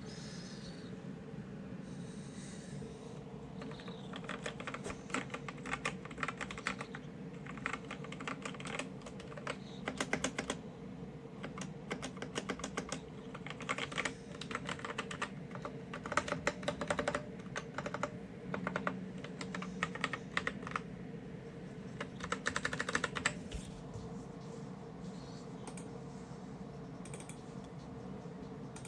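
Typing on a KOORUI MK082 mechanical keyboard: fast runs of key clicks in bursts that start about four seconds in and stop about five seconds before the end.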